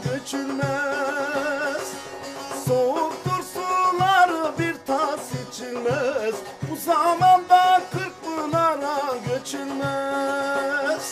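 Turkish Teke Yörük folk music: a wavering, ornamented melody over strummed bağlamas, with a frame drum keeping a steady beat about twice a second.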